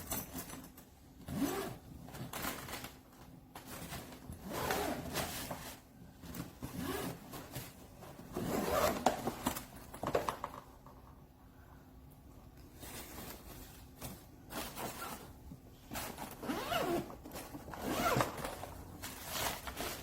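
Zipper of a hardshell carry-on suitcase being pulled, in a series of strokes about a second long, with a pause of a couple of seconds midway.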